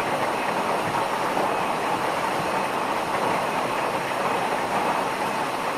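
Steady rushing of a waterfall and falling rain, with no breaks.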